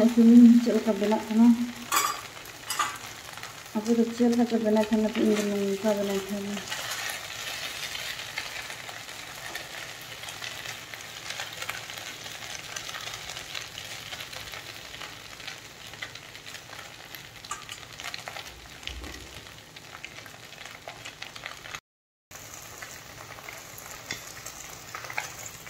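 Chow mein noodles with onion stir-frying in a pan: steady sizzling with the scrape and clink of a fork turning them. Two short pitched phrases sound over the frying in the first six seconds, and the sound cuts out briefly near the end.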